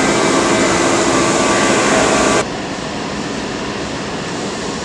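Truck assembly plant floor noise: a steady din of machinery with several steady tones running through it. It cuts off abruptly about two and a half seconds in, leaving a quieter, even hiss.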